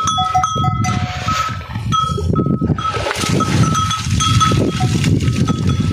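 Bells on a herd of cattle ringing irregularly, struck again and again as the animals move about. There is a patch of water splashing about halfway through.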